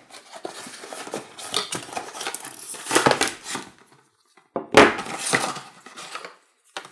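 Cardboard packaging being handled: scraping and rustling as an inner cardboard compartment is opened, a short pause, then a sharp knock a little before five seconds in and more rustling as the power supply is lifted out.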